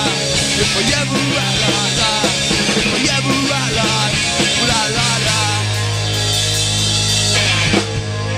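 Live punk-rock band playing loud, with electric guitars, bass and drum kit. About five seconds in the bass settles on one long held note, and the band stops together near the end.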